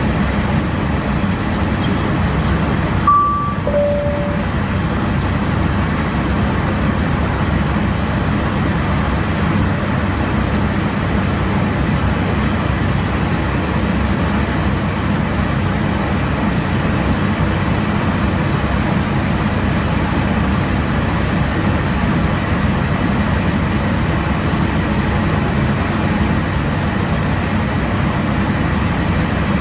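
Steady rushing noise inside a jet aircraft in flight at cruise altitude. About three seconds in, the noise briefly drops out and two short beeps sound, the second lower than the first.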